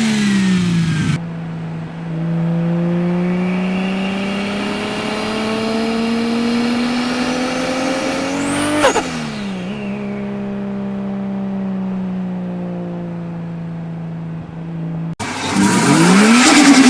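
Turbocharged car engine pulling under load, its pitch rising steadily. About nine seconds in, the driver lifts off and there is a brief sharp whistling sweep as the revs drop, then the engine holds a steady lower note. Near the end a louder turbo engine revving, with swooping whistles, cuts in.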